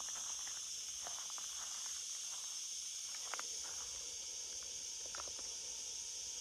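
Steady high-pitched hiss of an insect chorus in open countryside, with a few faint scattered clicks.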